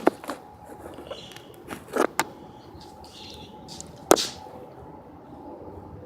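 A few sharp clicks and knocks of small hard parts being handled: the pieces of a smashed wristwatch. The loudest come at the very start and just after four seconds, with two quick ones about two seconds in, over a faint steady hum.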